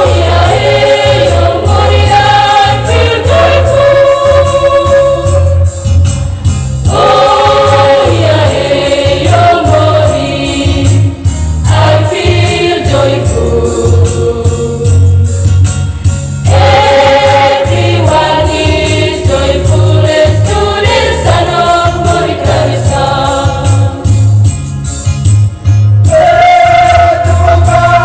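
A choir singing a Christian gospel song in phrases of a few seconds each, over instrumental backing with a steady, pulsing bass.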